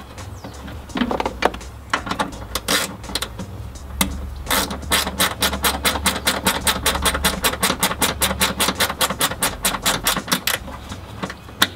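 Hand socket ratchet clicking in a fast, even run of about six clicks a second, with a few scattered clicks and knocks before it, as a battery ground cable's bolt is tightened down to the vehicle body.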